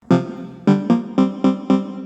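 Ringtone melody played on a synthesized keyboard sound: a single note, a short pause, then five quick notes about four a second, each struck sharply and fading.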